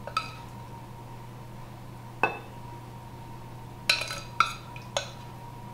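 Metal spoon clinking against a stainless steel saucepan five times as glaze is scraped out, each clink sharp and briefly ringing. Three of the clinks come close together in the last two seconds.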